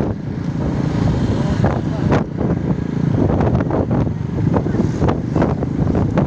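Strong wind buffeting the microphone: a loud, unsteady low rumble.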